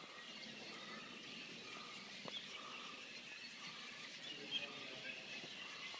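Cave swallows twittering faintly, a scatter of high chirps, with one light tap a little over two seconds in.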